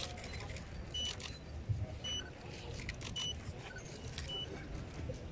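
General murmur of a large outdoor crowd over a low rumble. A short high electronic beep repeats four times, about once a second.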